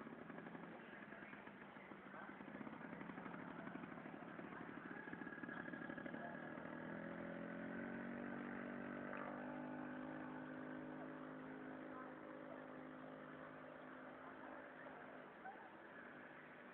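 Motorcycle engine running while riding through knee-deep floodwater. Its note comes up about six seconds in, rises slightly, holds steady, and fades out near the end.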